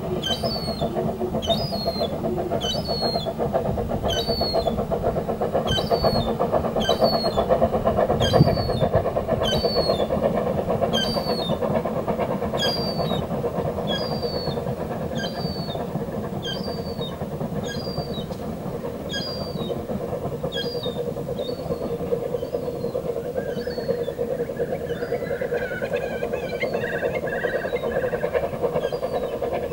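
Narrow-gauge steam train running along the embankment: a steady low rumble. Over it, a short high chirp repeats a little more than once a second and fades out about two-thirds of the way through.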